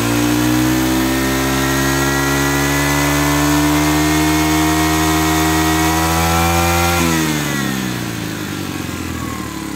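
Makita MEM427 four-stroke 27 cc brush cutter engine held at high revs, its pitch creeping slowly upward. About seven seconds in the throttle is released and the revs fall away quickly toward idle.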